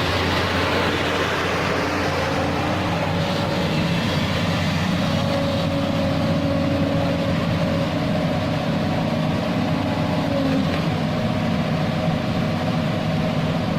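JCB excavator's diesel engine running steadily, with an even, unchanging engine note throughout.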